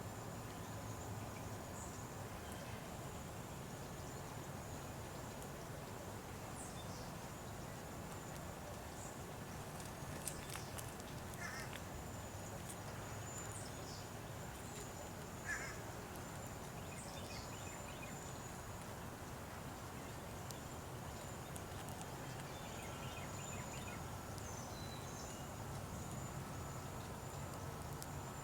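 Faint outdoor background with small birds giving scattered short chirps, two of them a little louder about a third and about halfway through, over a steady high-pitched whine.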